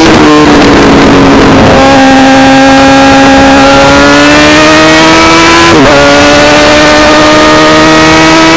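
Road motorcycle with a very loud exhaust, accelerating hard, recorded right beside the exhaust silencer. The engine note climbs steadily, with a sudden drop in pitch at the start and another about six seconds in as the rider shifts up a gear.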